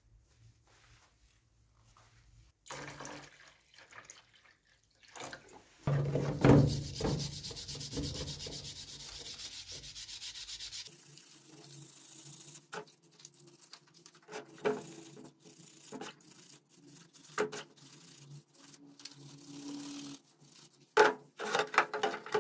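Hand wire brush scrubbing a wet steel pincer in a plastic tub: repeated rubbing strokes of the steel bristles on the metal, taking off the rust loosened by electrolysis. The first few seconds are nearly quiet.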